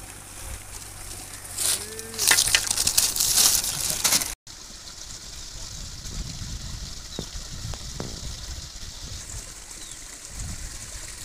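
Close rustling and handling noise for about two seconds, then, after a sudden cut, steady outdoor background hiss with low wind rumble on the microphone and a couple of faint ticks.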